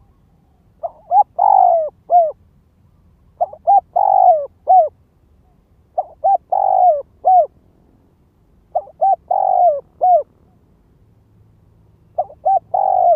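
Spotted dove (decoy bird) cooing its territorial call: five repeated phrases, each two or three short coos, a longer drawn-out falling coo and a short final coo, about every three seconds. This is a decoy's call used to draw wild doves in to a trap.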